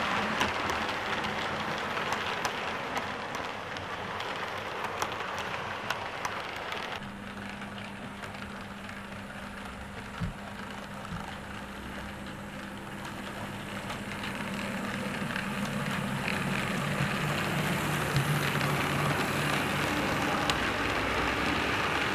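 Model train running on the layout's track: a steady rushing with many small clicks of wheels over rail joints as coaches pass close. After a sudden change about seven seconds in it is quieter, with a steady low motor hum, and the sound builds again as the diesel locomotive and its coaches come close near the end.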